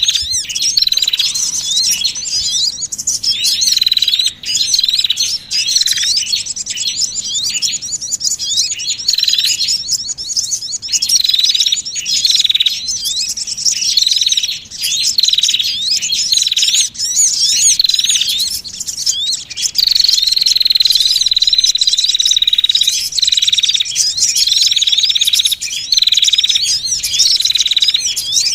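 Bird-lure recording of small songbirds calling excitedly: rapid, high, overlapping chirps and trills, with a short note near 4 kHz repeated over and over. About two-thirds of the way through comes one long unbroken trill lasting a few seconds. It is the kind of noisy mixed calling used to draw sunbirds and other small birds down to a trapping spot.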